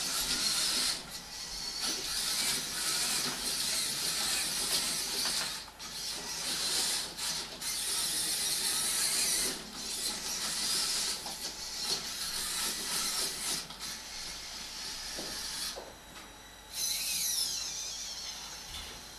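Small robot's electric motors and gear trains whirring as it drives and swings its arm. The whirr comes in stretches broken by short pauses between moves.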